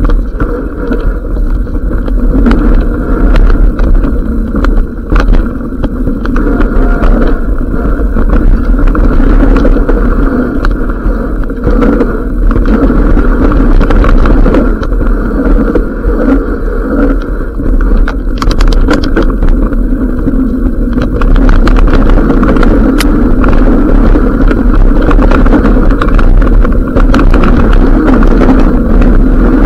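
A mountain bike descending a rough dirt trail at speed: a loud, steady, muffled rumble of wind on the microphone and tyres on the ground, with many small knocks and rattles from the bike over stones and roots.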